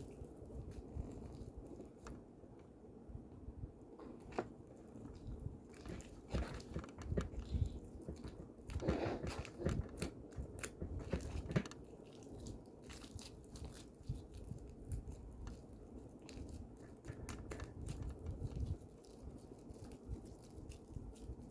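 Slime mixture being stirred and worked in a container: irregular wet squelches, crackles and clicks, busiest in the middle stretch.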